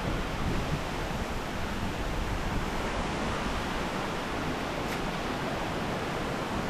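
Steady rushing of a waterfall: water falling over rocks.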